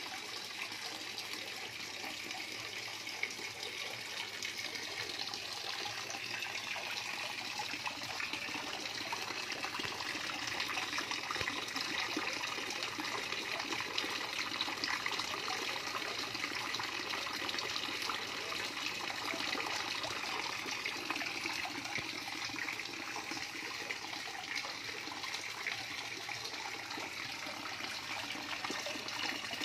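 Water trickling and splashing steadily in a small fish pond, a little louder midway through.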